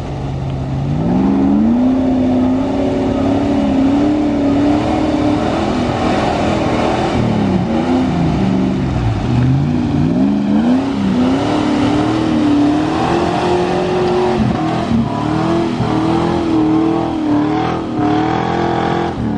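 A 4WD's engine revving hard under load, its pitch climbing in the first two seconds, dipping sharply about halfway and climbing again, then falling away near the end, as the vehicle struggles through mud.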